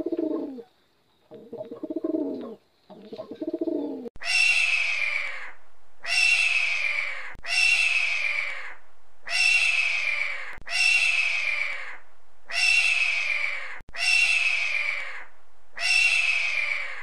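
Feral pigeons cooing, then from about four seconds in a bird of prey's harsh, falling scream. The same scream comes nine times, one to two seconds apart.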